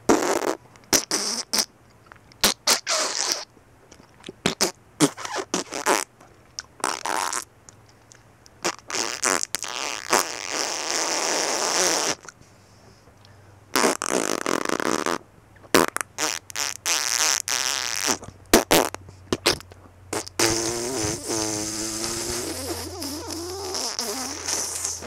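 A string of comic fart sounds, some short blasts and some longer and raspy, with a pause about halfway through and a long wavering one near the end.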